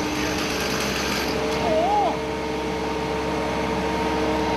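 Heavy machine engine running steadily with a constant whine, with a brief wavering tone about two seconds in.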